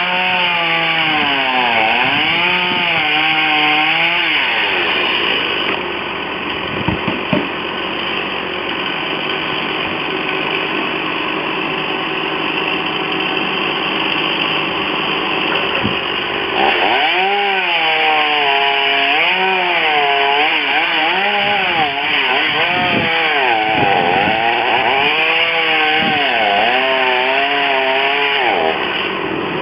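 Chainsaw cutting tree wood, its engine pitch rising and dipping as the throttle and load change, with a steadier stretch in the middle lasting about ten seconds.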